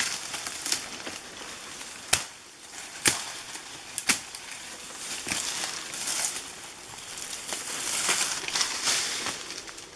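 Machete chopping through the young central leaf shoot of a babaçu palm: three sharp strokes about a second apart, a couple of seconds in, over rustling of brush and palm fronds. The rustling grows louder in the second half as the cut shoot is pulled free.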